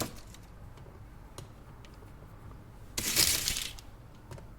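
Chocolate wrapper crinkling in a short burst of under a second, about three seconds in, with a few faint clicks of handling before it.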